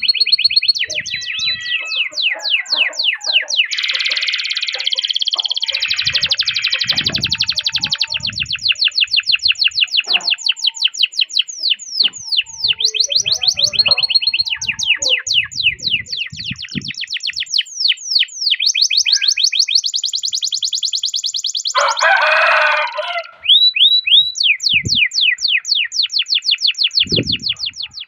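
Domestic canary singing a long rolling song: fast trills of rapidly repeated chirps, changing speed and pitch from phrase to phrase, with a short harsher, lower rasping phrase about three-quarters of the way through.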